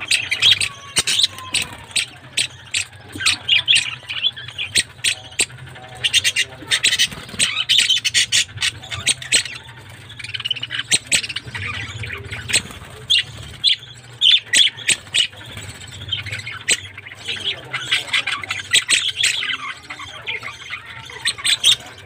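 A flock of budgerigars chattering and squawking, many short calls in quick succession overlapping without pause.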